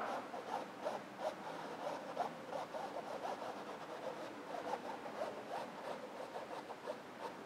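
Paintbrush bristles scratching and dabbing on a stretched canvas in quick, short, repeated strokes as acrylic paint is worked in to break up the colour. Faint.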